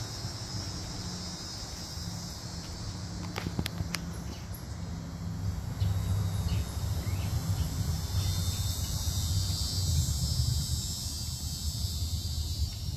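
A steady, high-pitched chorus of insects, over a constant low rumble, with a few sharp clicks about three and a half to four seconds in.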